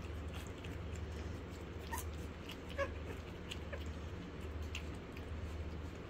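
Almost four-week-old Kerry Blue Terrier puppies eating raw hamburger from a dish, with small wet smacking and licking clicks. Two short puppy squeaks come a little under a second apart, the second and louder about three seconds in. A steady low hum runs underneath.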